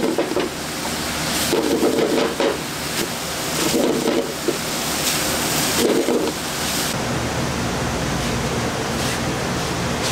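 Chopped bacon sizzling in a hot wok, with three spells of a spatula stirring and scraping through it.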